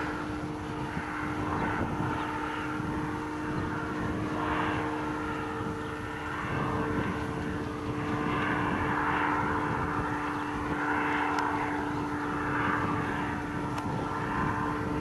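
Powered parachute's engine and propeller droning steadily aloft at an unchanging pitch, with gusty wind buffeting the microphone.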